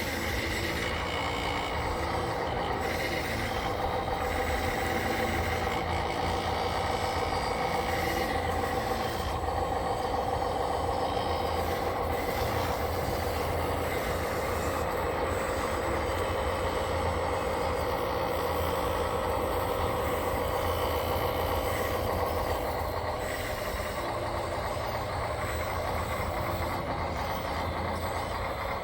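Radio-controlled construction machines running: a steady mechanical whine with a low rumble underneath that holds level throughout.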